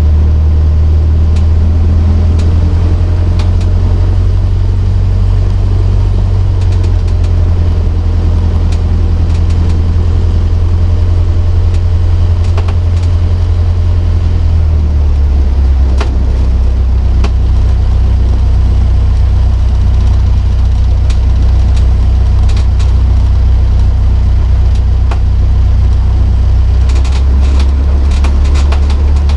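Cessna 152's four-cylinder Lycoming O-235 engine and propeller running steadily at low taxi power, heard from inside the cabin as a loud, low drone whose note shifts slightly about halfway through. A few sharp clicks come through near the end.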